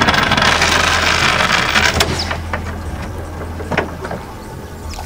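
Speedboat motor running with a steady low hum under a loud rush of water and wind noise that fades after about two seconds as the boat slows. Two short knocks come about two and four seconds in.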